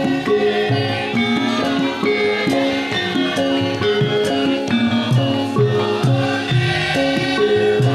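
Javanese gamelan music for a lengger dance: struck, ringing pitched instruments play a steady, rhythmic melody with percussion.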